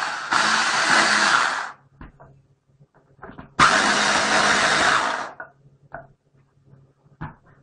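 Electric mini chopper whirring in two pulses as it minces onion: the first stops about two seconds in, and a second lasts about a second and a half near the middle. Light knocks of handling come between and after.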